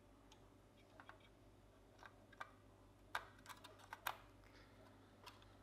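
Faint, scattered small plastic clicks and taps of a gauge stepper motor being pressed into place on an instrument cluster circuit board and the board being handled, sharpest about three and four seconds in.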